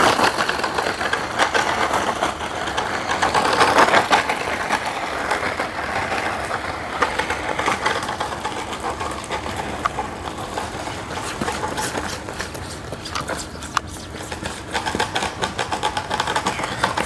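Electric motor and gears of a DEERC 9308E 1:16 RC monster truck whirring as it is driven around on its low speed setting, rising and falling with the throttle.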